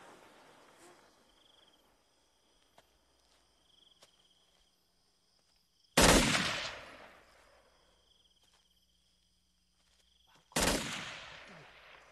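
Two loud gunshots about four and a half seconds apart, each echoing away over a second or so. Insects trill faintly in between.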